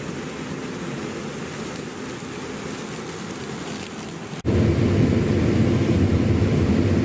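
Combine harvester running steadily while harvesting corn. About four and a half seconds in, the sound cuts abruptly to a louder, deeper engine and machinery noise.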